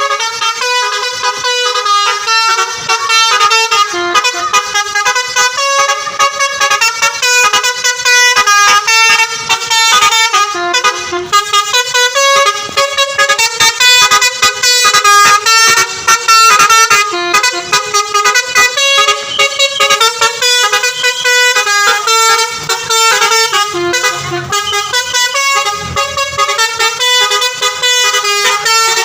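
Basuri V3 multi-tone 'telolet' musical horn playing a long melody of quick stepped notes.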